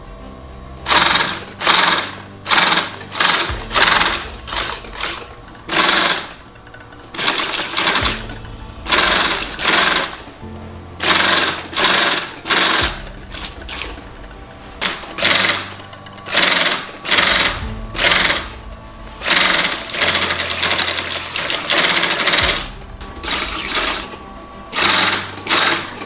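Cylinder-bed industrial sewing machine stitching leather glove pieces, running in many short start-stop bursts of about half a second each.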